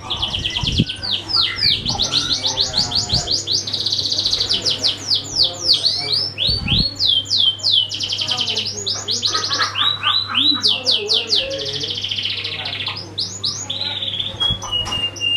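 Domestic canary singing a long, continuous song of rapid trills: runs of quickly repeated high notes, many sweeping down in pitch, switching from one run to the next every second or two.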